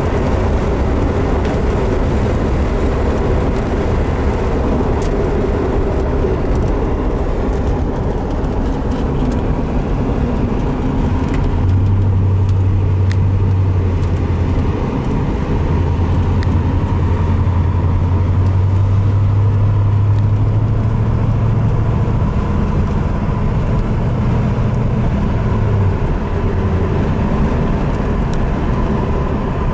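Car engine and road noise heard from inside the cabin while cruising steadily, with a low engine drone that grows stronger about twelve seconds in and eases off after about twenty-six seconds.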